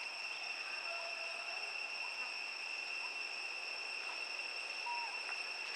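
Steady high-pitched insect drone, like a cricket chorus, holding one unchanging pitch with overtones. A few faint short whistles sound over it.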